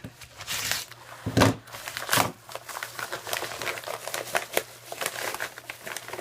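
Hands tearing open a mail package, with two louder rips about one and two seconds in, followed by continuous crinkling and rustling of the packaging.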